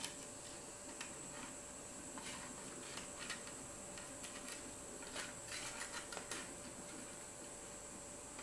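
A hand rubbing spices into a raw katla fish head and fish pieces on a plate: faint, scattered wet smacks and clicks, with a quick flurry of them about five to six seconds in, over a steady background hiss.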